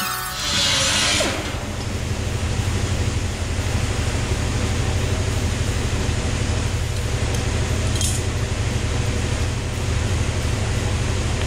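Pneumatic cut-off tool running in a short burst about half a second in, then a steady low machine drone until the end.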